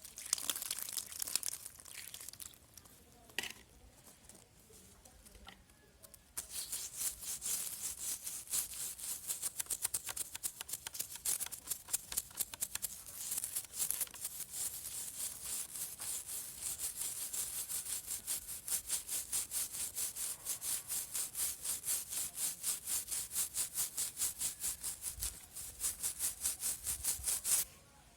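Edge of a coin scraping the dried bark of a saw scar on a serut (Streblus asper) bonsai trunk, rubbing away the dead, dried tissue of the wound. A few irregular scrapes at first, then about six seconds in, steady rapid back-and-forth strokes, about three a second, that stop just before the end.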